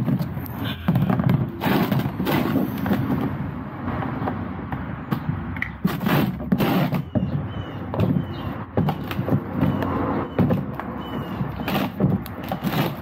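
Irregular knocks and clicks of hand-tool work on a car's plastic underbody access panel, its fasteners being undone with a 10 mm socket.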